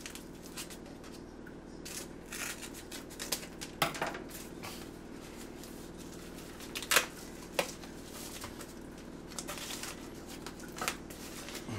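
Scissors snipping along the edge of a padded paper mailer, then the paper crinkling and rustling as the envelope is pulled open and the cardboard inside is handled, with a few sharp crackles, the loudest about seven seconds in.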